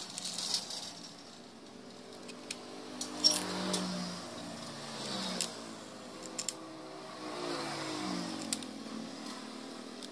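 Several sharp metal clicks and taps as small parts and a pulley are fitted by hand onto an old electric hand planer, the loudest a little after three seconds in. Behind them a motor vehicle engine runs, its pitch rising and falling.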